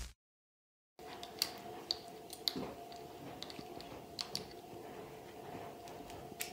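Starting about a second in, faint scattered metallic clicks and clinks from a leash snap and collar hardware being handled on a dog's prong and flat collars, over quiet room tone with a faint steady hum.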